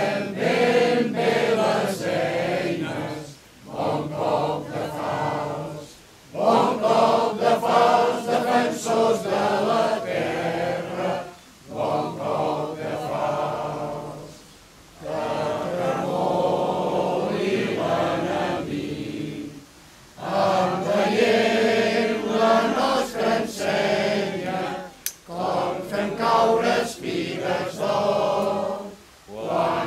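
A crowd of people singing together in phrases a few seconds long, with short breaks between them.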